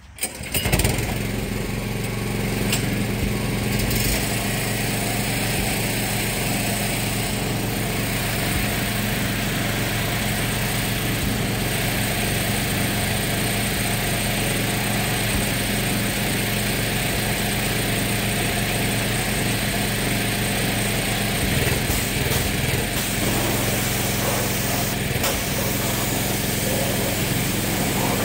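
Small engine-driven machine starting up with a sudden jump in level about half a second in, then running loud and steady at a constant speed.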